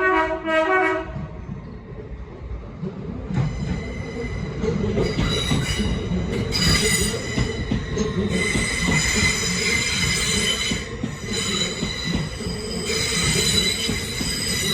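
A Lumo Class 803 electric train pulling away: its two-tone horn ends on the lower note about a second in, then the train rumbles past with its wheels squealing on and off from about three seconds in.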